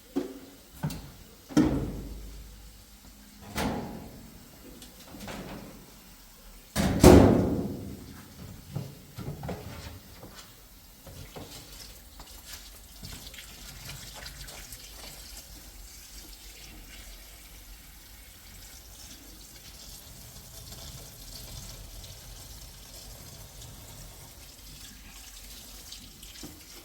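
A few sharp knocks and clatters, the loudest about seven seconds in, then water running steadily from a tap into a sink.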